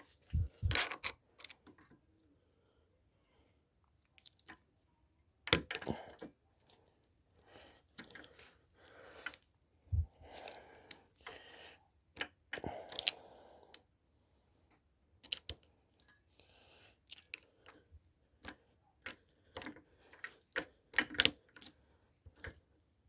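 A screwdriver being jammed and worked into a cheap padlock with a plastic core to force it open: irregular metal clicks and scrapes with a few louder knocks.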